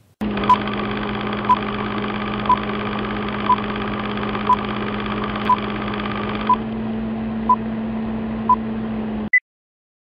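Old-film countdown sound effect: a steady hum and hiss with a short beep once a second, nine beeps in all. It cuts off suddenly about nine seconds in, with one brief higher blip after.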